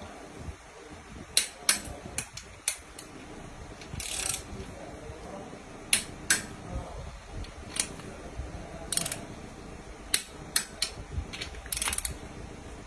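Torque wrench ratcheting and clicking as main bearing cap bolts are tightened to 55 Nm: sharp irregular clicks with a few short ratcheting bursts.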